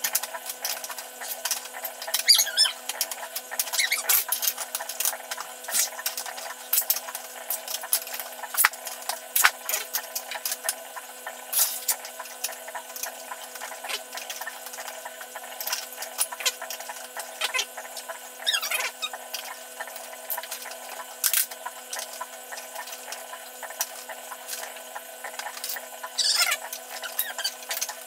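Plastic Lego bricks clicking and knocking as they are handled, sorted and pressed together, many small sharp clacks at an irregular pace, with a few short high squeaks.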